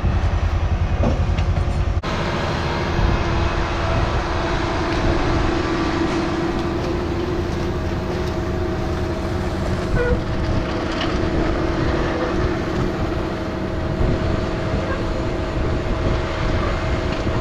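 Tractor engine running steadily under heavy load with a constant clatter, pulling a tile plow that is cutting drainage tile about five feet into the ground.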